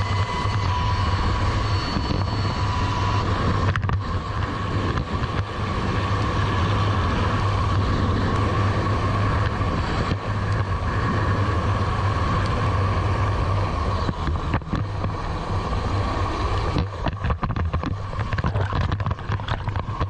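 Helicopter rotor and engine noise running loud and steady, with wind rushing over the microphone. In the last few seconds it turns choppy with splashing waves.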